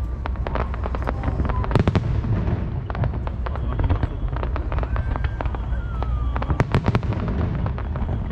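A fireworks display going off in a dense run of bangs and crackles, with the loudest clusters about two seconds in and again near seven seconds.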